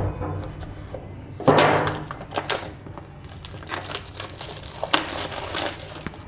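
Plastic shrink wrap being torn and pulled off a cardboard phone box, crinkling and crackling in several bursts, loudest about a second and a half in.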